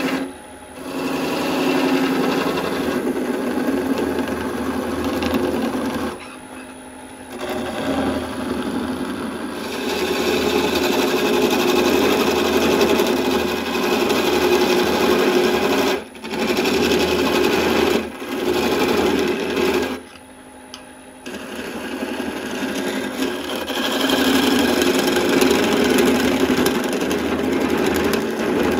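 Turning tool cutting into a spinning birch blank on a wood lathe: a steady scraping rasp in long stretches, dropping away in several short pauses when the tool comes off the wood.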